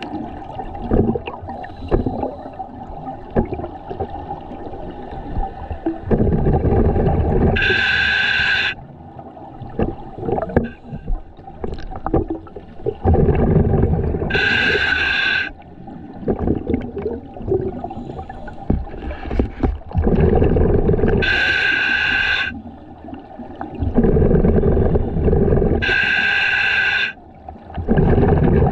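Scuba diver breathing underwater through a regulator. Four short hissing, whistly inhalations a few seconds apart alternate with longer low, bubbly rumbles of exhaled air.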